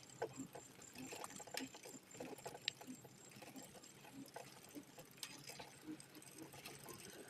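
Faint, irregular clicking and light rattling from a ride rolling along the street, over a low steady hum.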